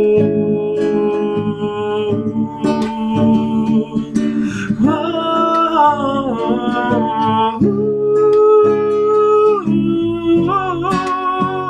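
A song: acoustic guitar strumming and picking chords under a long-held melodic vocal line.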